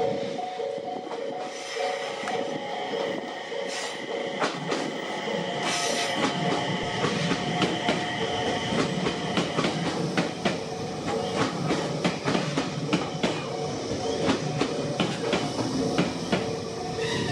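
A train passing over a level crossing, its wheels clacking over the rail joints in quick, regular clicks from about six seconds in. The crossing's electronic alarm rings steadily over it.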